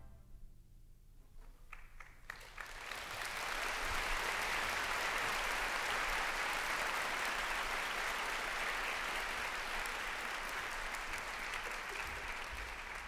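Concert-hall audience applauding at the end of a wind band piece: the final chord's reverberation dies away into a brief hush, a few scattered claps start about two seconds in, then full applause builds and holds, easing slightly near the end.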